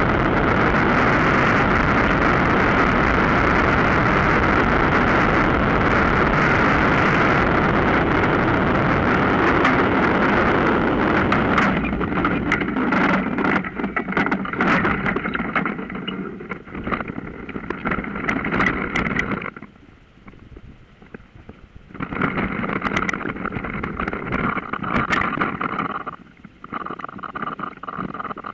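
Small motor and propeller of a Mosquito NRG powered hang-glider harness running steadily, mixed with wind rush. About twelve seconds in the sound turns broken and uneven with clicks and knocks, and it drops out twice.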